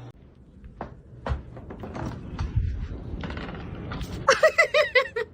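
Scattered knocks and thumps, then from about four seconds in a person laughing in quick repeated bursts.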